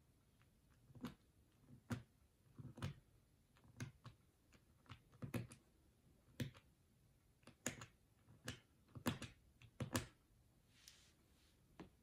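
Series of small plastic clicks from a suitcase TSA combination lock's number dials being turned one notch at a time with a fingertip, irregularly spaced at about one or two a second, while a new code is set in reset mode.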